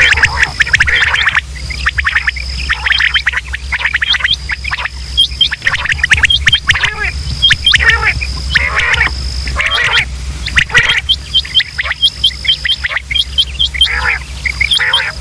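Quail calling: many dense, overlapping chattering calls with hooked notes, broken by a thin high whistle-like tone that keeps coming and going, over a steady low hum.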